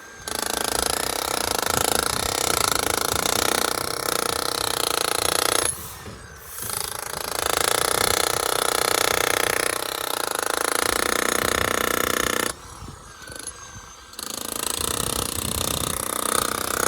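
Makita HM1213C SDS-Max electric demolition hammer running and hammering in rapid strokes, with a steady motor whine. It stops briefly twice, about six seconds in and again about twelve and a half seconds in, then starts again.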